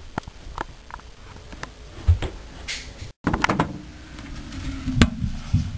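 Scattered light knocks and clicks with handling rustle, a low thump about two seconds in and a sharp knock near the end; the sound drops out briefly once, partway through.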